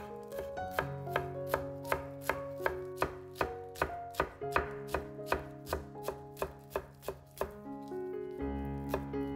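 Chef's knife chopping fresh parsley on a wooden cutting board: even knocks of the blade on the board, about three a second, thinning out near the end, with background music underneath.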